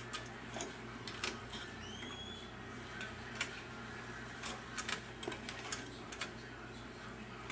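Scattered small clicks and scrapes of a CPU heat sink's metal retention latch being worked onto the socket's hooks, with a brief squeak about two seconds in and a quick run of clicks a little past the middle.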